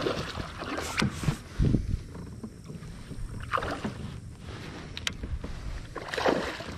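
Knocks and splashes from a fishing kayak on the water, irregular and sudden, with a heavy low thump about two seconds in.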